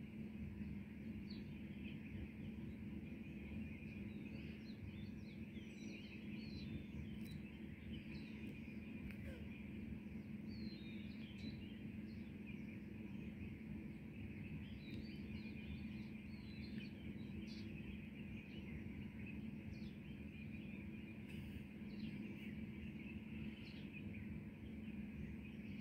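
Birds chirping in scattered short calls over a steady low background hum, in a dawn chorus.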